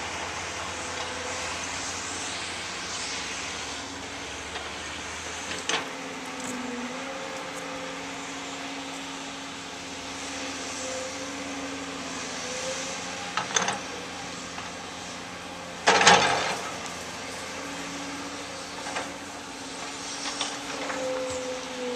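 Diesel engines of a hydraulic excavator and a dump truck running steadily while digging a pond, the engine note shifting up and down as the machines work. A few short knocks cut through, the loudest about sixteen seconds in.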